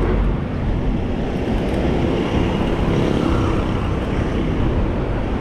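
Steady outdoor road noise: an even rushing haze with a low rumble, with no clear engine note or single event.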